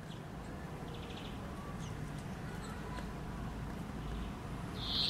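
Small songbirds calling: scattered short, high chirps and a brief buzzy trill about a second in, over a steady low rumble. A louder high call sets in right at the end.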